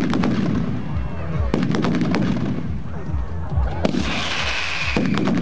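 Mascletà firecrackers going off in rapid clusters of sharp bangs, with a loud hissing burst about four seconds in.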